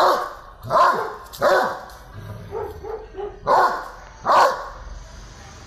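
Young Doberman pinscher barking: three short barks in quick succession, a few softer yelps, then two more barks.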